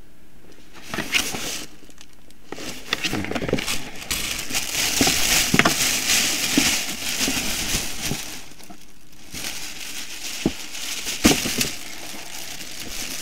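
Packaging crinkling and rustling as shoes are handled and unwrapped, with several sharp knocks and a brief pause a little before the end.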